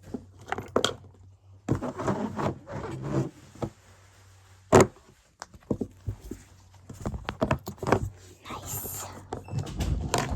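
Close-up handling of small toys: scattered taps, clicks and rustling, with one sharp knock about five seconds in and a burst of rustling near the end.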